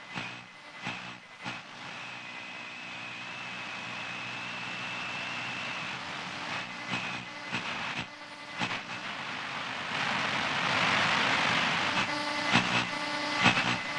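Analog TV static sound effect: a steady hiss broken by scattered clicks and crackles, with a faint high whistle in the first seconds. The noise swells louder in the last few seconds.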